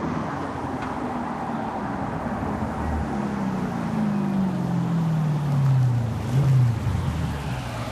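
Audi RS6's twin-turbo 4.0 TFSI V8 through a Larini cat-back exhaust as the car drives up close, its revs falling steadily, with a brief louder burst a little after six seconds in, where it is nearest.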